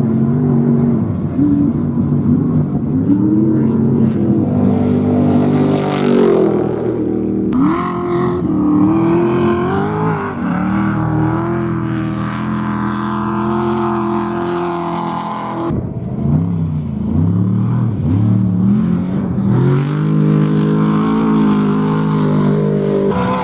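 Off-road race vehicles' engines revving hard, the pitch climbing and dropping again and again with throttle and gear changes. The engine sound changes abruptly twice, about a third and two-thirds of the way in.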